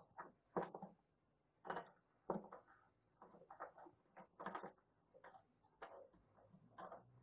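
Faint, irregular metallic clicks and scrapes of pliers working an element wrench as a water heater's heating element is unscrewed from the tank.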